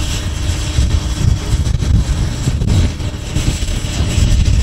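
Blizzard wind buffeting the microphone: a loud, uneven low rumble that gusts up and down.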